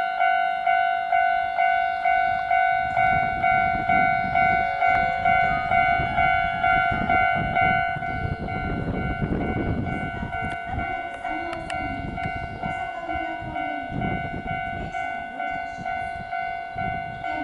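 Electronic railway level-crossing warning bell ringing steadily at about two strikes a second. A Hankyu 1000 series electric train rumbles in on the rails, with its wheel and rail noise rising from about halfway through.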